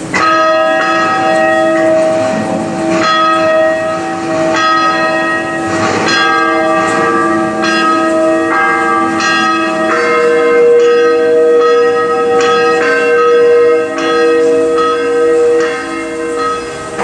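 Church bells ringing, several bells struck in turn about once a second, their long ringing tones overlapping.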